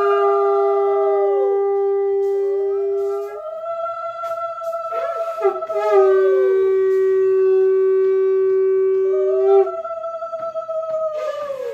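Conch shells (shankha) blown in long overlapping blasts: one steady low note held about three seconds, twice, and a higher note that rises at the start of each breath and sags in pitch as it runs out.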